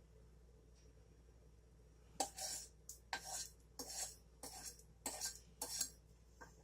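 A utensil scraping against a saucepan in about seven quick strokes. The strokes start about two seconds in and come roughly one every half second, as the last of the caramel topping is scraped out of the pan.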